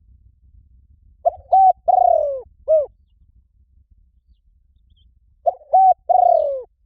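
Spotted dove cooing: two phrases of four notes about four seconds apart, the third note of each longer and falling in pitch.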